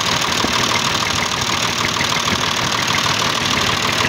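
Massey Ferguson 240 tractor's three-cylinder diesel engine idling steadily.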